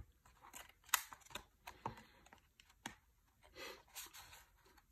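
Faint handling of a cardboard Blu-ray digipak being folded open and pressed flat: scattered light clicks and taps, the sharpest about a second in, and a soft rustle of card sliding about three and a half seconds in.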